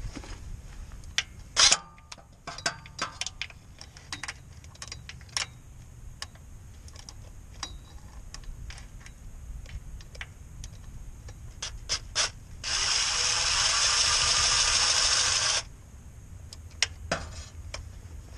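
Sharp metal clicks and clinks of a socket extension working on bolts under the truck. Then a power drill driving the socket runs steadily for about three seconds, spinning out an already-loosened bolt.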